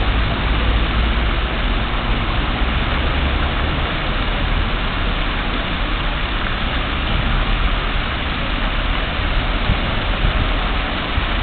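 Steady noise of road traffic mixed with the splashing of a fountain's water jets, under a low rumble that eases about four seconds in.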